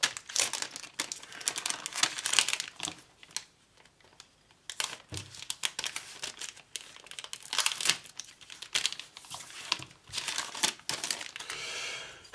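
Clear plastic kit bag crinkling in bursts as a grey plastic model sprue is handled and taken out of it, with a short pause about four seconds in.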